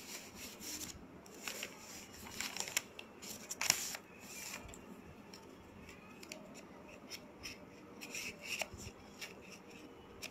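Hands handling small cosmetic packaging: faint, irregular rustles and clicks, the sharpest a little under four seconds in.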